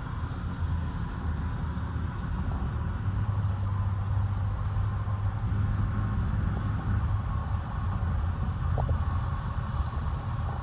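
Steady road noise inside a car cruising on a highway: a constant low rumble from the tyres and engine.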